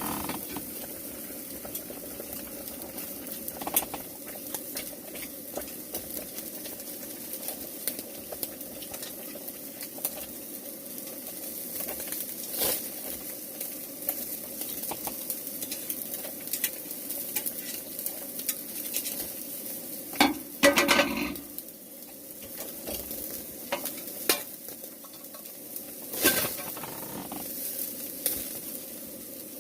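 Food sizzling in a pan, with frequent small clicks and scrapes of a utensil and a louder clatter of cookware about two-thirds of the way through.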